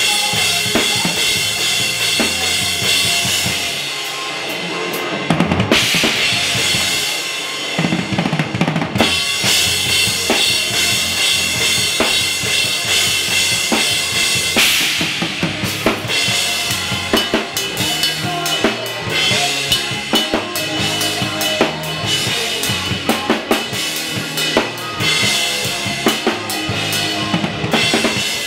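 Drum kit played live with a full band, heard close up at the kit: a busy beat of bass drum, snare and cymbals. The band drops back briefly about four seconds in, then crashes back in, with another cymbal crash about halfway through.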